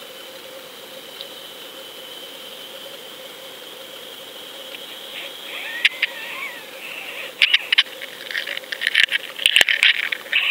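Sound picked up underwater by a fishing camera on the line: a steady two-note hum over a water hiss. From about seven seconds in, a growing clatter of sharp clicks and rattling sets in as the camera rig spins.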